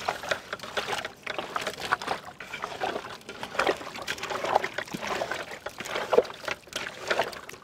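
Hands mixing cut stingray pieces with spice powders, salt and tamarind water to marinate them: wet, irregular squishing and sloshing.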